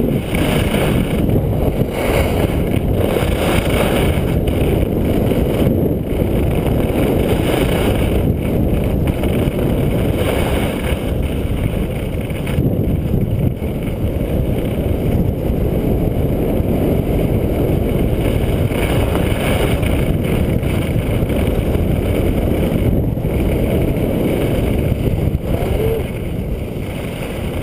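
Steady rushing wind buffeting a head-mounted action camera's microphone during a downhill ski run, with the hiss of skis sliding over groomed snow swelling and fading through the turns.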